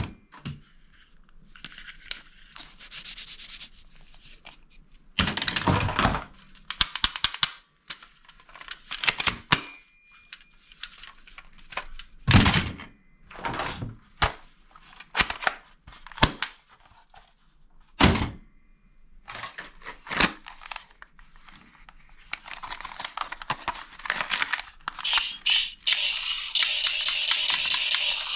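Plastic toy guns knocking and clattering as they are handled and dropped into a cardboard box full of other toy guns, with a few heavier thuds and rubbing and scraping between. Near the end a denser, continuous rattling sets in.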